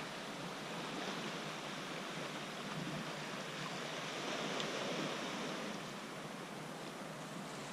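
Sea water lapping and splashing steadily around a kayak, swelling and easing gently.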